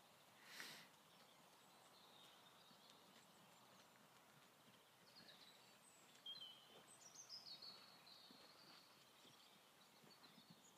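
Near silence outdoors with faint small birds chirping and twittering, busiest about six to eight seconds in. A brief rush of noise just under a second in.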